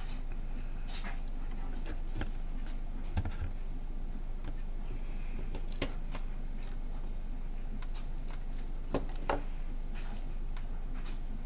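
Handling noise: scattered light clicks and taps as a cardboard display box is moved about, with one sharper knock about three seconds in, over a steady low hum.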